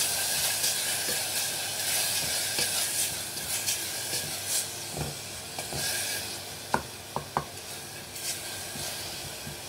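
Chopped onions frying in oil in an aluminium pressure cooker, sizzling steadily while a spatula stirs them, with a few sharp knocks of the spatula against the pot about two-thirds of the way through.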